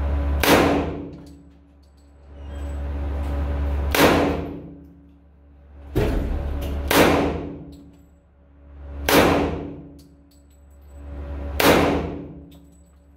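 CZ 97 .45 ACP pistol firing 230-grain FMJ rounds in slow aimed fire: about six sharp, clanging shots a couple of seconds apart, each ringing on in the concrete range booth.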